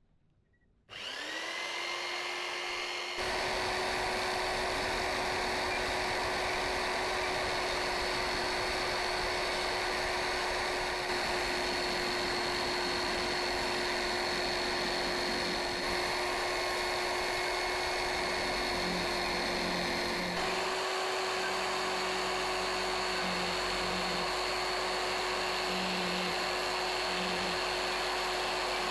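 Electric hand drill serving as the spindle of a homemade milling machine. It spins up about a second in, then runs steadily at high speed while its end mill cuts into a block of wood.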